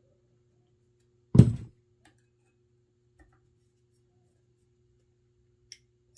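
One sharp knock about a second and a half in, from the air rifle's parts being handled on the workbench, then a few faint clicks, over a low steady hum.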